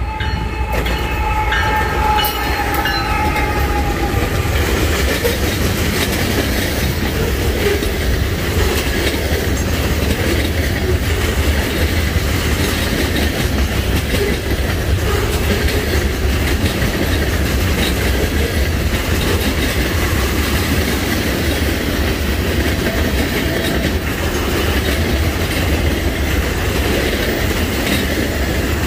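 Norfolk Southern freight train passing close by: the diesel locomotives go by in the first seconds, with a ringing tone that fades out, then a steady loud rumble and clatter of freight cars' wheels rolling over the rails.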